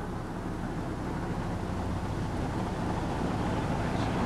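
Dump truck engine running steadily, a low rumble that grows slightly louder.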